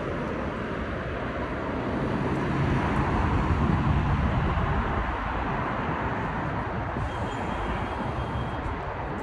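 Steady city street traffic noise, swelling a little a few seconds in as a vehicle passes.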